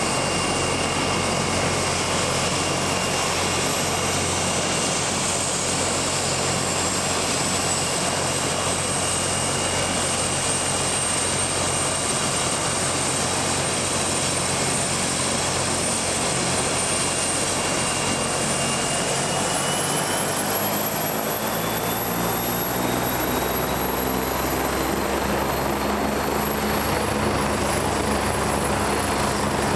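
AgustaWestland AW109's twin turbine engines running up during start-up: a steady, high turbine whine that climbs in pitch about two-thirds of the way through as the engines spool up. A low, even throb from the speeding main rotor grows in under it near the end.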